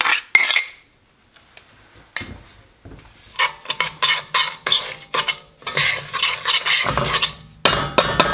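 A metal spoon clinks against a small glass bowl a few times at the start, then stirs in a stainless steel saucepan, scraping and clinking against the pan in quick repeated strokes from about two seconds in.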